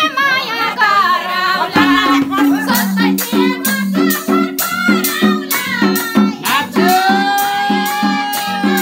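Nepali live dohori folk music: a wavering sung line for the first couple of seconds, then an instrumental passage of short repeated low notes over evenly spaced percussion strikes, about two a second, with one long held note near the end.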